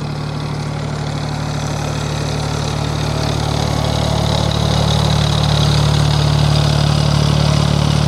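Tractor engine running steadily while mowing, growing gradually louder as the tractor drives closer.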